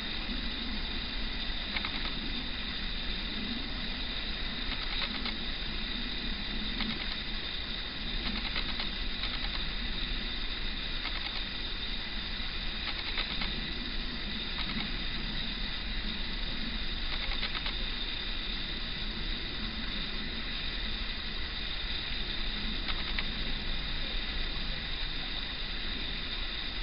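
Class 56 diesel locomotive moving slowly away on low power: its engine is a low, wavering drone heard faintly under a steady hiss of wind.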